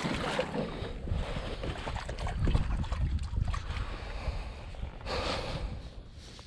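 Wind rumbling on the microphone as a kayak is paddled, with a short rushing splash of the paddle blade in the water about five seconds in.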